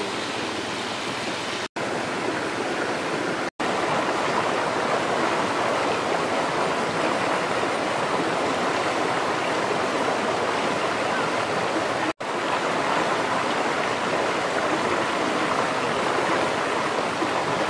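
Shallow stream running over rocks: a steady rush of water that cuts out for an instant three times.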